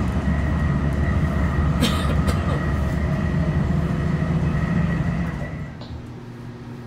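Interior of a TRAX light-rail car running at speed: a loud, steady rumble of wheels and running gear with a faint steady whine, and a couple of sharp clicks about two seconds in. Near the end the sound drops suddenly to a much quieter steady hum.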